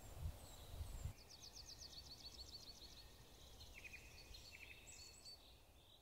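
Faint songbirds singing in the background, a series of quick high trilled phrases. A low rumble, like wind, is heard in the first second.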